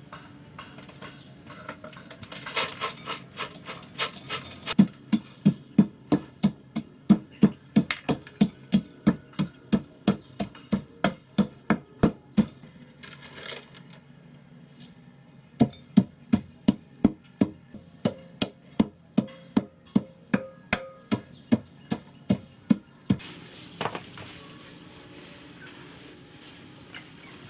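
Wooden pestle pounding dried spice seeds in a mortar: a steady run of sharp knocks about three a second, a short pause about halfway, then a second run of pounding that stops a few seconds before the end.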